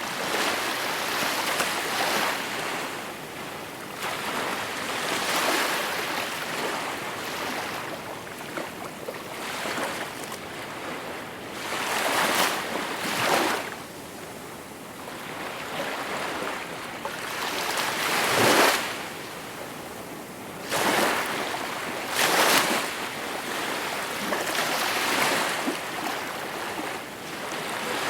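Gentle sea waves breaking and washing on the shore, swelling and falling back every few seconds, with a few stronger surges.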